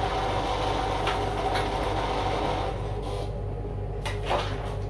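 Riccar 8500 sewing machine running to wind thread onto a bobbin on its bobbin winder: a steady whir that starts at once and stops after about three seconds.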